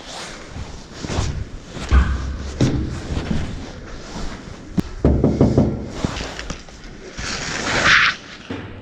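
A run of irregular knocks, thumps and rattles, with a short hiss near the end.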